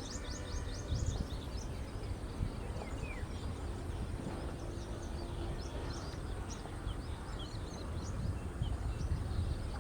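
Several small birds chirping with quick, high, repeated notes over a steady low rumble.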